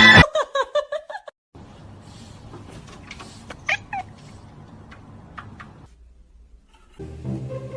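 Cat meowing: a quick run of about six short meows in the first second or so, then a couple of brief meows about four seconds in, over faint background noise.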